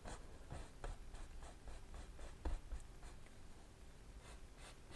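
Faint scratchy strokes of a bristle paintbrush on canvas, blocking in wet oil paint in short, irregular dabs and drags, with a slightly louder tap about halfway through.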